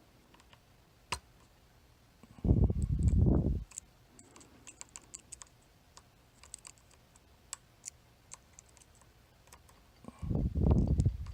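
Small, irregular metal clicks of picking tools working the pins of a Chicago Ace tubular lock. Twice, once early and once near the end, a low muffled rush of sound about a second long is louder than the clicks.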